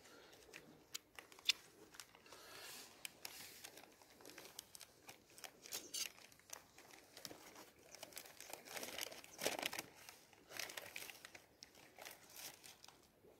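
Plastic wrapping crinkling and rustling in short, uneven bursts as it is handled, with a few faint clicks.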